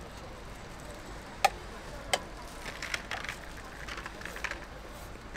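Kitchen utensils knocking during food preparation: two sharp knocks that ring briefly, about two-thirds of a second apart, then a quick run of lighter taps and clicks.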